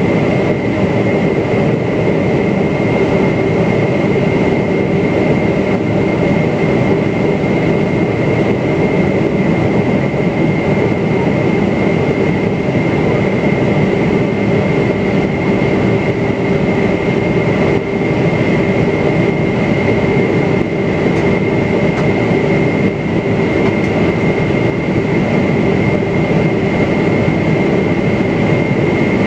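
Steady cabin noise inside a Boeing 777-300ER descending to land: the rush of air and the drone of its GE90-115B turbofan engines, with a steady high whine over a low rumble.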